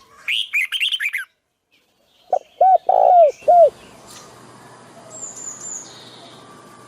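Wild birds calling: a quick run of high, down-slurred chirps, then, after a short pause, four lower, arched calls. A faint steady hiss follows, with a thin high whistle over it.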